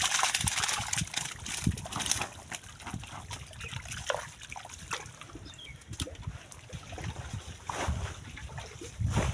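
Water splashing and trickling, heaviest in the first two seconds, then scattered small splashes and drips.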